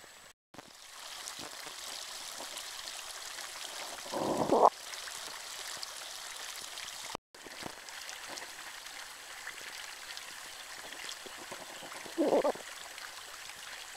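Carbon-dioxide-rich mineral spring water bubbling up and splashing in a stone basin, with water pouring from a spout, making a steady splashing hiss; the bubbling comes from natural CO2 gas rising from below. Short voices break in twice, about four and twelve seconds in.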